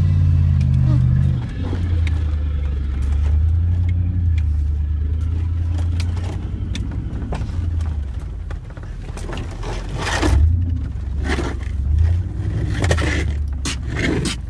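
Chevy Suburban's engine droning low, heard from inside the cab while it drives a rough off-road trail. The drone rises and falls, and over the last few seconds a series of sharp knocks and scrapes join it as the truck bumps along.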